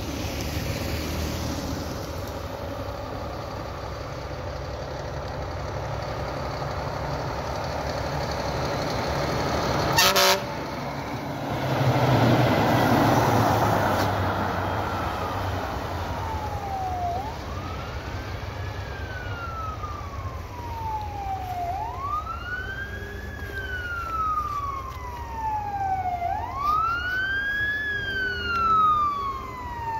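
Fire engines on an emergency run: steady road and engine noise, a short loud burst about ten seconds in, then a fire engine rushing past on a wet, slushy road. From about seventeen seconds a fire-engine siren wails, rising quickly and falling slowly about every four and a half seconds, as the next vehicle approaches.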